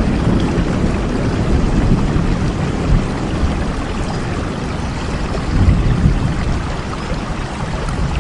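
Rain falling steadily as an even hiss, with a low rumble underneath that swells about five and a half seconds in.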